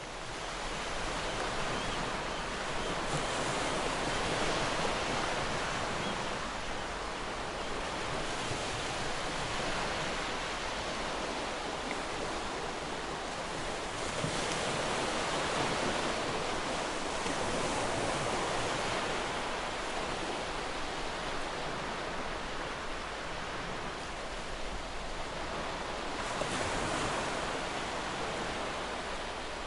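Sea waves washing onto a shore: a continuous surf that swells and eases every few seconds.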